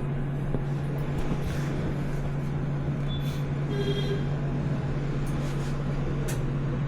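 Steady low electrical hum, with brief high beeps about three and four seconds in, as the Hirayama HV-85II autoclave is switched on to test it.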